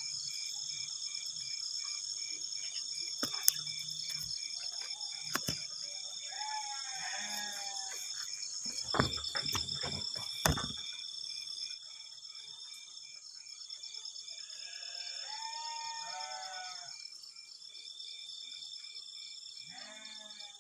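A night chorus of crickets trilling steadily at high pitch, one trill stopping and starting every few seconds. A frog calls in short croaking bouts a few times. Several sharp knocks and rustles, loudest about halfway through, come from branches being handled.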